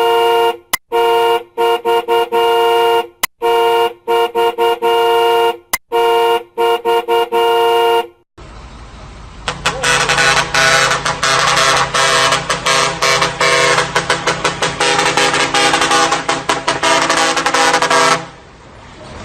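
Car horn sounded in a string of long honks at one steady pitch with short gaps between them. After a brief break, a different, fuller horn sound follows for about eight seconds, stuttering in rapid pulses.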